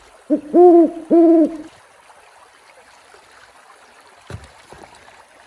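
Owl hooting: a short lead note, then two arched hoots, all within the first two seconds. A faint knock comes about four seconds in.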